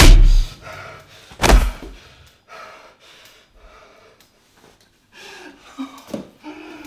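Two heavy punches land with loud thuds, one at the very start and one about a second and a half in. They are followed by ragged, gasping breaths and short whimpering sobs near the end.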